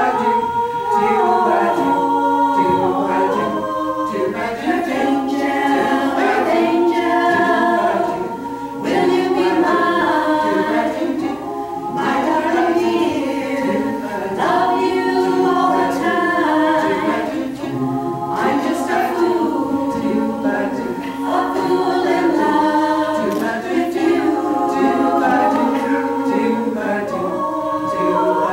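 A women's a cappella group of eleven voices singing a 1950s doo-wop medley in close harmony, with no accompaniment.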